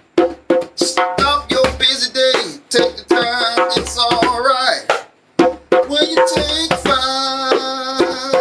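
A man singing over a backing track of drums and bass, with sharp percussive strikes and low bass notes at a regular pulse; the voice breaks off briefly a little after five seconds in.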